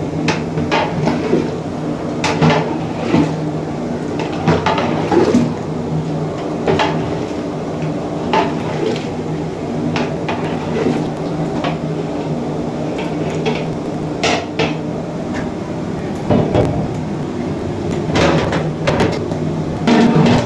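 Metal ladle stirring and scraping in an aluminium cooking pot of boti curry, knocking against the pot at irregular moments every second or two, over a steady low hum.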